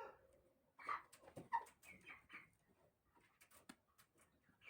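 Faint, short calls from broiler chickens sick with a respiratory illness, a handful within the first two and a half seconds, then only scattered soft clicks.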